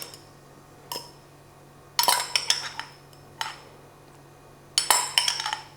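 Spoon or utensil clinking and scraping against a dish in four short bouts, the sound of something being spooned into a bowl.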